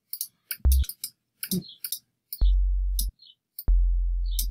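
Deep jungle sub-bass from an NI Massive synth patch playing low notes: a short one about half a second in, then two longer held notes from about two and a half seconds. Sharp clicks of keys and a mouse are scattered between the notes.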